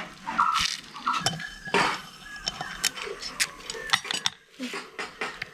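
Irregular metallic clicks and clinks of a hand tool and loose parts on an aluminium scooter cylinder head as the camshaft is being taken out.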